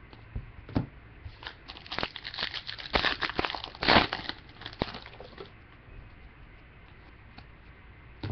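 A foil trading-card pack, a 2007 Contenders football pack, is torn open and crinkled by hand. It makes a run of crackling rips over the first five seconds or so, loudest about three to four seconds in.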